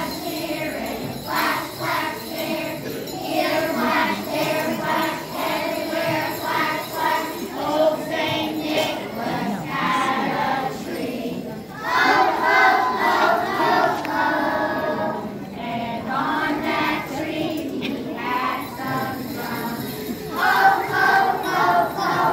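A group of young children singing a Christmas song together, with jingle bells ringing along in time.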